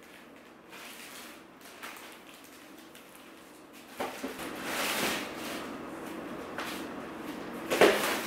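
Household handling sounds: faint knocks and rustles, louder from about four seconds in, with one sharp knock like a cupboard door or drawer near the end.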